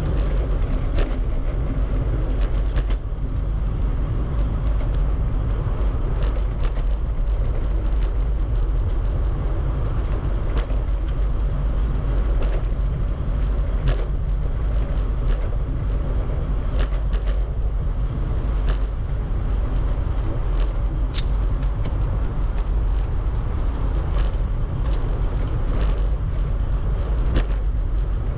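Riding a bicycle: a steady low rumble of wind buffeting the camera microphone and tyres rolling, with scattered irregular clicks and rattles from the bike.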